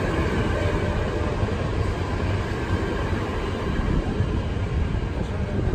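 NS intercity train coaches rolling past along the platform: a steady, loud rumble of wheels on rail.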